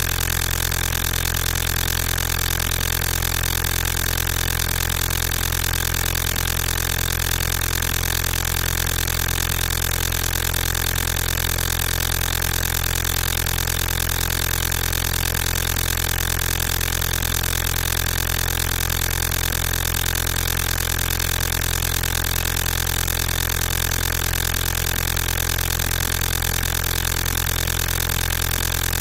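A loud, steady, engine-like low drone made of fixed tones, with no change in pitch or level.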